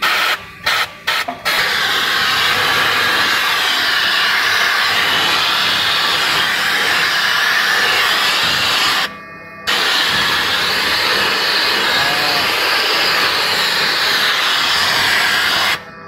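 Super Gun SG220 compressed-air vacuum gun hissing as it sucks debris off the floor. A few short blasts at first, then a steady rush of air, broken by a brief pause about nine seconds in and cut off near the end.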